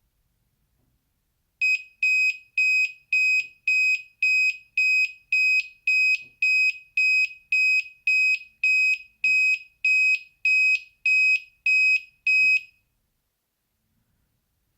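Active 3.3 V buzzer of a homemade Arduino alarm clock sounding its alarm: about twenty short, high beeps at an even pace of nearly two a second, starting under two seconds in and stopping after about eleven seconds.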